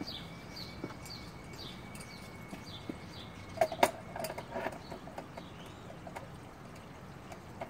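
Small clicks and knocks of hands handling a sand filter's pressure gauge and air relief fitting, loudest in a cluster about halfway through. Behind it a bird repeats a short falling chirp about twice a second.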